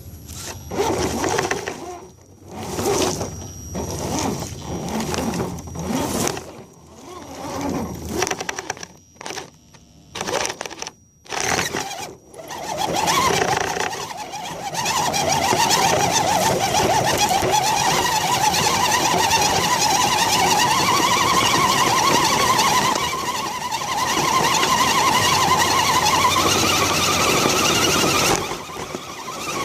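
Axial SCX10 RC crawler's electric motor and gears whining in short stop-start throttle bursts, then running steadily from about halfway through, the whine rising slightly in pitch near the end.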